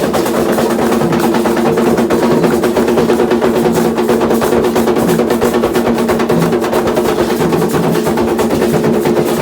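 Candomblé atabaque drums played in a fast, dense, unbroken rhythm.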